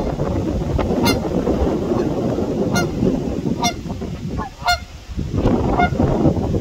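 Canada goose honking: about six short honks at irregular intervals of roughly a second, over a steady rushing background noise.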